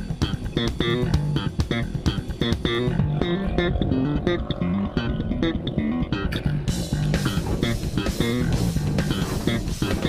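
Instrumental background music with bass guitar and guitar over a steady beat; the high, bright part of the mix drops away about three seconds in and comes back near seven seconds.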